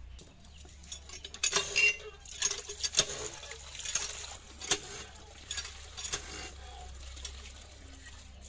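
Metal wok clinking and water splashing into it under an iron hand pump as it is filled and rinsed by hand. The sharpest clinks bunch up in the first few seconds, then thin out to scattered taps and splashing.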